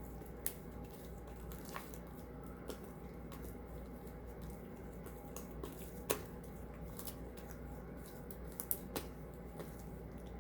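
Sticky slime being kneaded and pulled by hand, with soft squishes and scattered sharp crackling pops as it clings to the fingers. The slime has gone too sticky, which is blamed on too much shaving foam.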